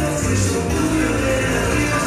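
Latin dance music playing.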